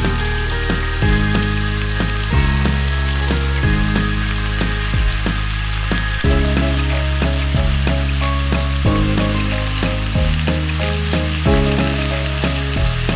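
Food sizzling steadily in a hot pan, a constant frying hiss. It is heard over background music with bass notes that change about once a second.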